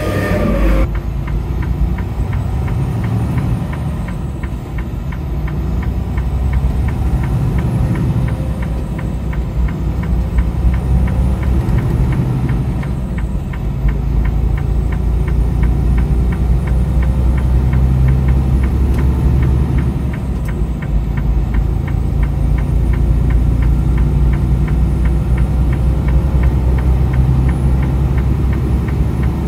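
A vehicle's engine running with a steady low rumble, with a fast, even ticking over it.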